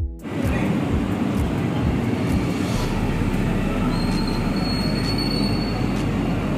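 Loud, steady mechanical rumble of heavy machinery. A thin high squeal runs for about a second, starting about four seconds in, and a low hum sets in around three seconds in.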